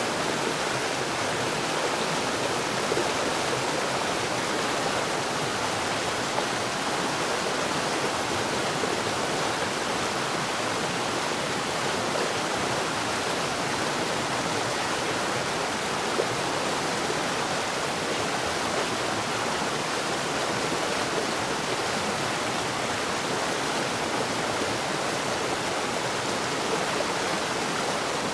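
Steady heavy rain, an even unbroken rush of water noise with no thunder.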